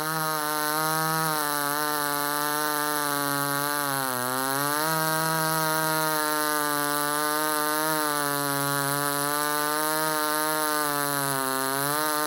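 Ported Homelite XL-76/XL-130 hybrid chainsaw's two-stroke engine running at steady high revs, its pitch sagging briefly twice, about four seconds in and again near the end. The saw is set up a tad lean.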